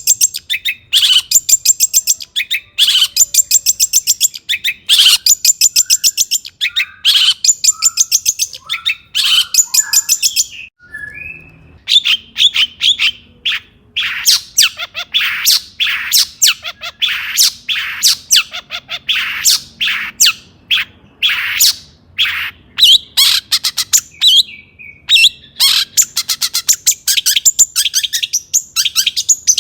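Long-tailed shrike singing a loud, energetic song: bursts of rapid chattering notes about a second long, then after a brief pause about ten seconds in, a varied run of sharp, harsh notes.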